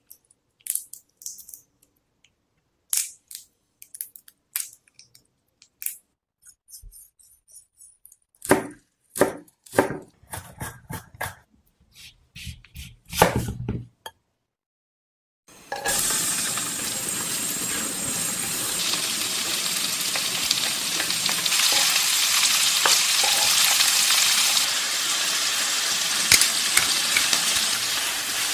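Scattered clicks and crackles of raw tiger prawns being peeled and handled. Then, after a short silence about halfway through, a steady sizzling of garlic and prawns frying in olive oil in a frying pan.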